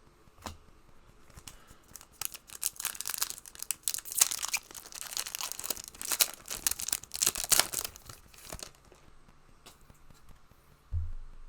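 A trading-card booster pack wrapper being torn open and crinkled: a dense crackling run of tearing and crumpling that lasts about six seconds, followed near the end by a brief low thump.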